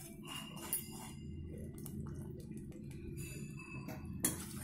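Metal ladle stirring boiling jaggery syrup in a metal kadai, with light clinks of the ladle against the pan, over a steady low rumble from the bubbling syrup on the gas flame. The syrup is cooking down toward one-thread consistency.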